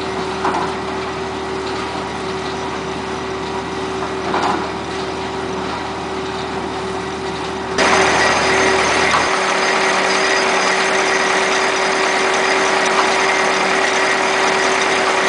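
1997 FHE EarthSaver 515 trommel screen's engine running steadily with a constant hum. About eight seconds in the sound turns suddenly louder and harsher.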